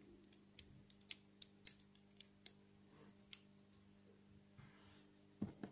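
Near silence with faint, scattered clicks and ticks of small plastic parts, a stick and heat-shrink tubing, being handled in the fingers, over a faint steady hum. A short louder handling sound comes near the end.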